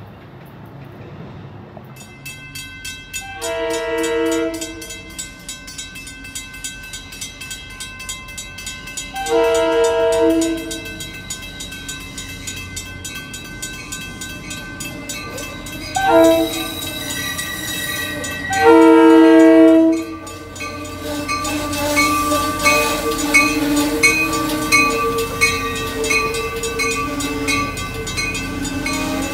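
Shore Line East train's Mafersa cab-car horn sounding the grade-crossing signal: two long blasts, a short one and a final long one, over the steady ringing of a crossing bell. Afterwards the train rolls past, its wheels running over the rails.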